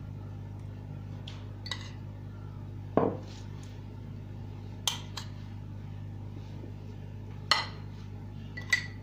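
Metal spoon clinking and scraping against a glass baking dish while spreading an oily herb-and-garlic mixture over potato slices: a handful of short sharp clinks a second or two apart.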